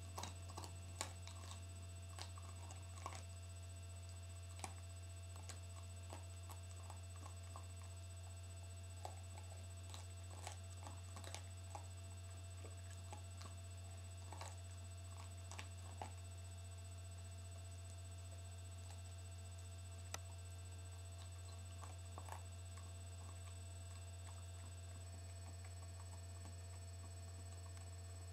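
A dog gnawing a raw veal breast bone: faint, irregular clicks and cracks of teeth on bone, thinning out near the end, over a steady low hum.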